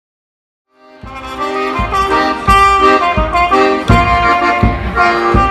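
Trumpet solo over accordion accompaniment, one musician playing both: a trumpet melody above held accordion chords and a steady low beat, starting about a second in.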